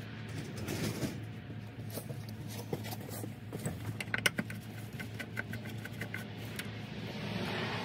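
Scattered clicks and taps of a screwdriver working the hose clamp on an intake tube, with gloved hands knocking against the plastic air box, over a steady low hum. The sharpest click comes a little past the middle.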